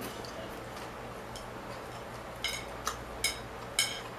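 Chopsticks clicking against a ceramic plate, four short sharp clicks in quick succession in the second half, over a steady background hiss.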